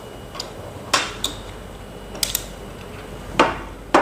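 Teak-wood and stainless-steel folding table frame parts being laid down and shifted on a glass tabletop, knocking and clacking against each other and the glass. About six sharp knocks come at uneven intervals, including a quick double knock near the middle.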